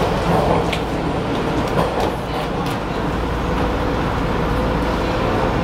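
Hawker Siddeley H5 subway car heard from inside the car as the train runs: a steady rumble with a few sharp clicks in the first half and a faint steady tone coming in about halfway.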